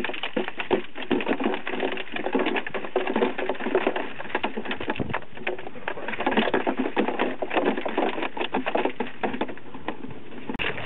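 Wire crab pot being shaken out into a plastic cooler, crabs and bits of shell clattering in: a dense, continuous rattle of small clicks and knocks.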